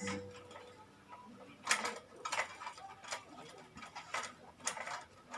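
Irregular sharp clicks and light clacks of a ring light's stand and fittings being handled and adjusted, about seven of them, starting a little under two seconds in.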